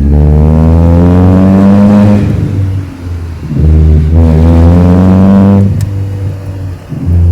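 Chevrolet Astra 2.0 four-cylinder with a straight-through exhaust and no muffler, accelerating hard from a launch. The revs climb for about two seconds, drop during a gear change about three seconds in, climb again in the next gear, then ease off near the end.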